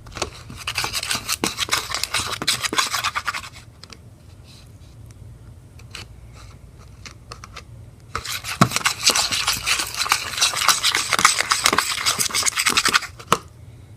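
A utensil scraping rapidly round a bowl, stirring PVA face mask and borax-and-water activator together into slime. It comes in two spells, the second starting about eight seconds in.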